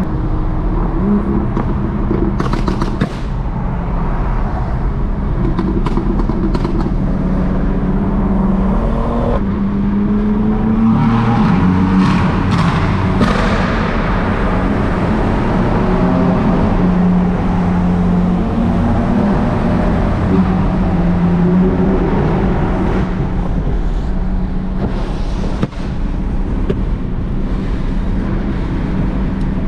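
BMW F8X M car engine running under way at moderate revs, its drone dipping and rising with the throttle, over road and tyre noise on a wet road.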